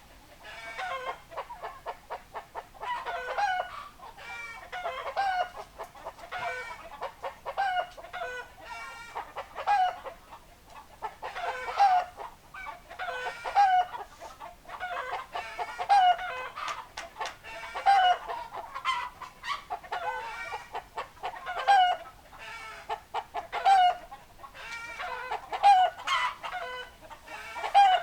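Chickens clucking continuously, with a louder call coming about every two seconds.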